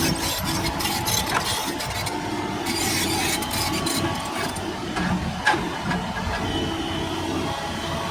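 Doosan excavator's diesel engine running steadily under work, with scattered clanks and rattles of the bucket and rock, and one sharp knock about five and a half seconds in.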